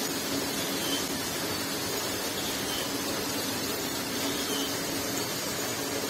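Steady machinery hiss with a constant low hum underneath.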